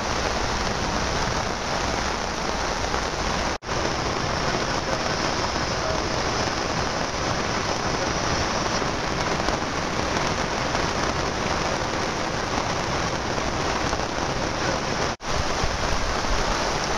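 Heavy rain falling steadily in a thunderstorm, a dense even hiss. It cuts out for an instant twice, about three and a half and fifteen seconds in.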